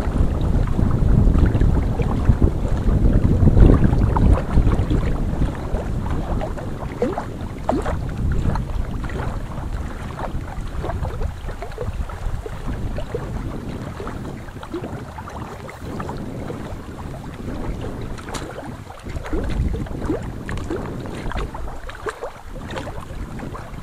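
A hooked catfish thrashing and splashing at the water's surface, with wind rumbling on the microphone, strongest in the first few seconds.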